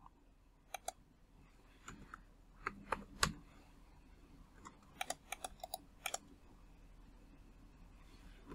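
Faint clicks of a computer keyboard and mouse in short, scattered runs, with a quick cluster of five or six clicks about five seconds in.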